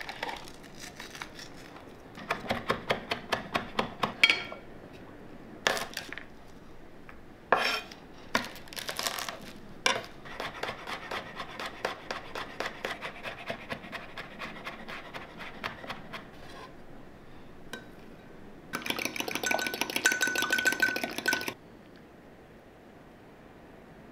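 Food-prep sounds: a chef's knife chopping garlic on a wooden cutting board in a long run of quick light knocks, with separate clicks and clinks of utensils against a glass measuring cup. Near the end, a loud rapid clatter lasts a couple of seconds.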